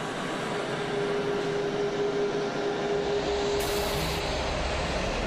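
Aircraft noise on an airport apron: a steady rush with a constant whine in it, and a deeper rumble that comes up about three seconds in.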